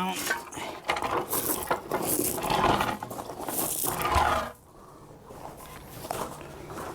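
Metal clanking and rattling from the lawn mower's cutting deck and its lift linkage as the deck is lowered. It lasts about four and a half seconds, then drops to a few faint clicks.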